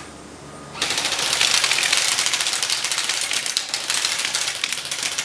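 Two JG HK 416 airsoft electric rifles firing in full auto: a fast, continuous rattle of shots that starts about a second in and runs for over four seconds, with BBs hitting CDs propped on a wooden bench.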